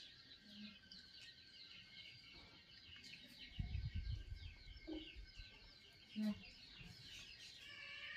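Small birds chirping steadily in the background, a dense run of quick, repeated high notes. A low rumble rises for about a second a little past halfway, the loudest thing here, and a couple of short low sounds follow.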